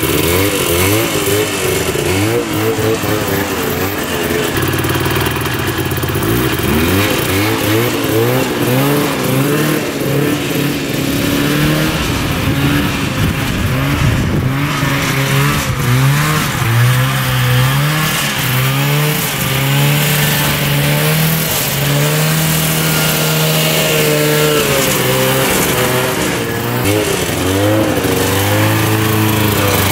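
A 1970s mini off-road tank's 400cc two-stroke engine running, its revs rising and falling again and again.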